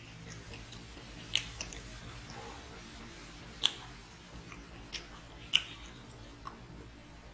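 Close-miked chewing as rice and chicken curry are eaten by hand, with a handful of short sharp clicks at uneven intervals.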